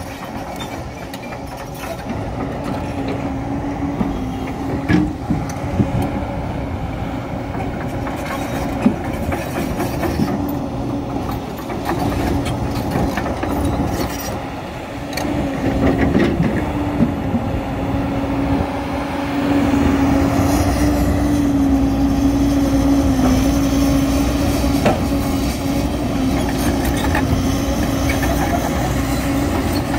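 A JCB crawler excavator's diesel engine running with a steady drone, mixed with clanking of steel tracks and scattered sharp knocks of rock. The engine grows louder about halfway through and again about two-thirds of the way through.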